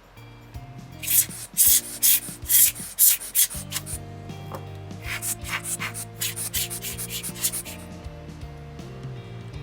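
Quick rubbing strokes, likely a lens part being wiped during cleaning. About six loud strokes come first, then a faster run of lighter ones, over background music.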